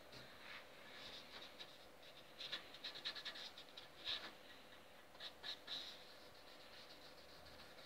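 Gloved hand rubbing dark finish into a wooden bass guitar body: faint, scratchy rubbing strokes that come in a cluster from about two and a half to six seconds in.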